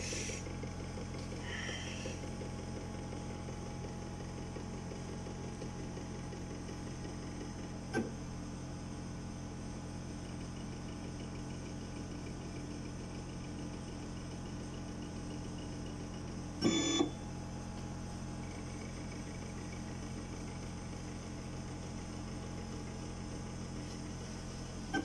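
Sirona inLab MC XL dental milling unit running its automatic calibration: a steady machine hum with several constant motor tones, a single click about eight seconds in and a short double knock around seventeen seconds in.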